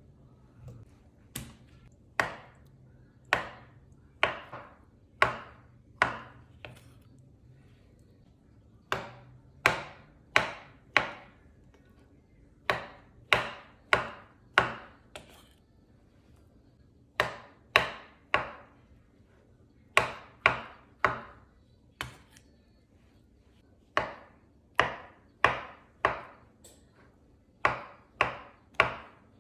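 Knife chopping on a cutting board: sharp single strikes about two a second, in short runs of three to six with brief pauses between.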